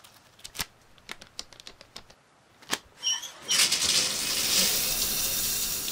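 Scattered light clicks, then a couple of short high chirps. About three and a half seconds in, a cartoon shower starts spraying water with a steady hiss.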